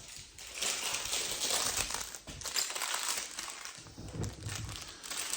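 Packaging around a cabinet door handle crinkling and rustling as it is handled, in an irregular crackle.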